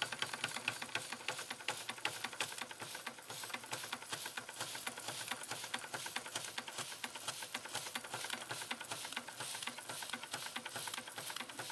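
A 1904 Märklin toy compound steam traction engine running under live steam, its moving works making a rapid, even mechanical clatter.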